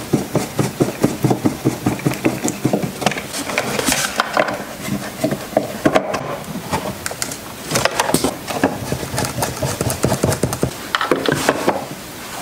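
Hand screwdriver driving small screws into a plastic gauge cluster housing: a quick run of clicks, creaks and scrapes of the screws and the plastic parts being handled, with short pauses between screws.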